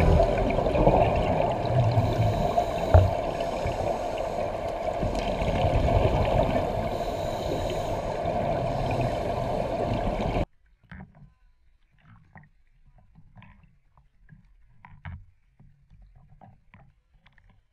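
Muffled underwater rush of water and divers' exhaust bubbles heard through a camera housing, with a single click about three seconds in. It cuts off abruptly about ten seconds in, leaving only faint, scattered water sounds.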